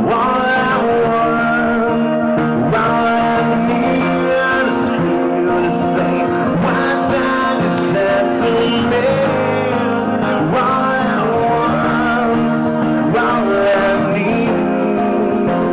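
A male singer performing live with a strummed acoustic guitar, the sung melody over steady guitar chords.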